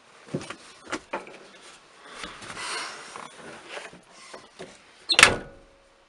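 Hand work on a car's steering column: a few light clicks and knocks with scraping and rustling as plastic and metal parts are handled and fitted, then one loud knock about five seconds in.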